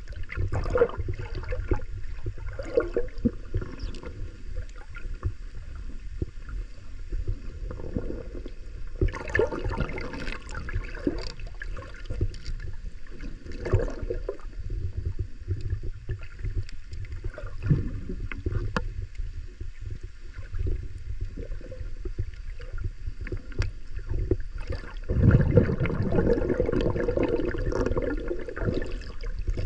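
Muffled underwater sound heard through a camera in a waterproof housing: a steady low rumble of moving water with scattered clicks and knocks, and a louder rush for a few seconds near the end.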